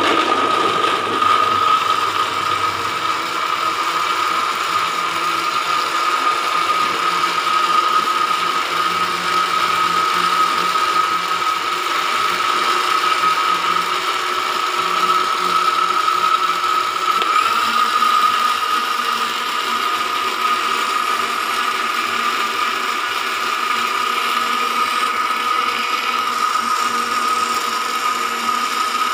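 Electric blender switched on and running at speed: a steady high motor whine over a rough, rattling grind. The pitch shifts slightly a little over halfway through.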